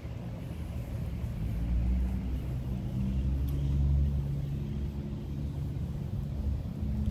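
Road traffic passing, a vehicle's engine rumbling low and growing louder to a peak about four seconds in before easing off.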